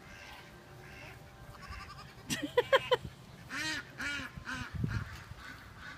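Animal calls: a wavering pitched call about two and a half seconds in, then a quick run of about four short calls.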